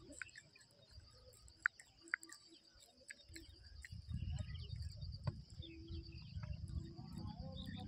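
Outdoor ambience of insects chirring steadily on a high pulsing note, with a couple of short sharp bird chirps about two seconds in. A low rumble builds from about halfway through.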